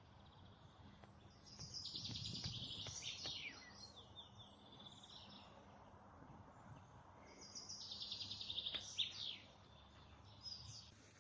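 A songbird singing in a spring forest: two rapid trilled song phrases about six seconds apart, each ending in a quick falling flourish, with fainter calls of other birds between them.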